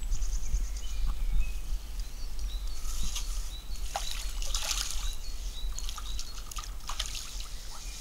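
Water splashing and trickling as a hooked carp thrashes at the surface, in a cluster of sharp splashes a few seconds in. Birds chirp in the background over a steady low rumble.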